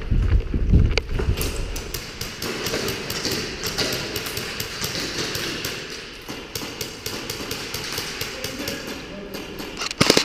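Heavy footfalls and gear knocking while running over a concrete floor, then many sharp taps and clicks of airsoft gunfire in the hall, ending with a short, loud burst from a gas-blowback WE MP7 airsoft gun.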